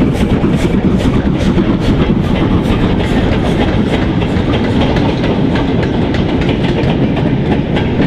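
Freight train wagons rolling past on jointed track: a steady rumble with rapid, regular clicks as the wheels cross the rail joints.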